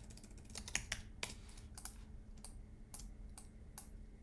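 Computer keyboard keys tapped lightly at an irregular pace, about ten faint clicks.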